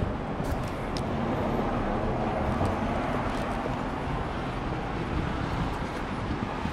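City street traffic: a steady low rumble with a vehicle passing, swelling in the middle and easing off again.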